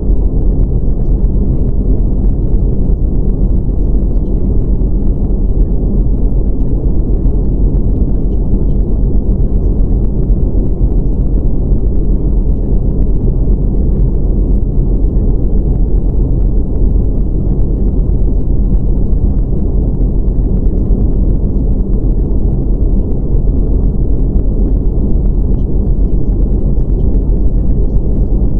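Steady, deep rumbling noise with no rhythm or change, used as the calming masking sound of a subliminal track. Spoken affirmations are mixed in faintly beneath it.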